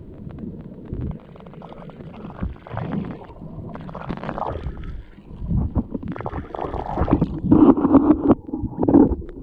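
Underwater water noise picked up by a submerged camera: muffled, irregular sloshing and gurgling with small bubble clicks as the swimmer moves. The surges grow louder in the second half.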